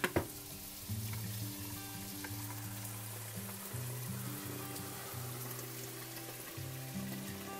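Food sizzling in a hot wok, under background music with a steady run of low notes, and a sharp click just after the start.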